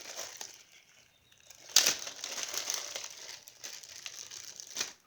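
Crinkling of a Crayola Model Magic clay packet being handled, with a sharp, louder crackle about two seconds in and crinkling that goes on until near the end.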